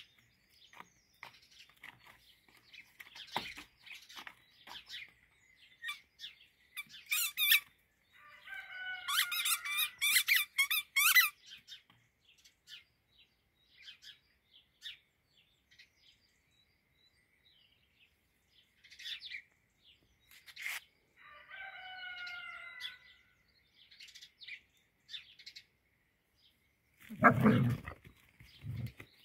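Squeaky toy ball squeaking in two runs of short pitched squeaks, one about a third of the way in and a briefer one about three quarters through, with scattered light clicks and taps between. A short, louder low sound comes near the end.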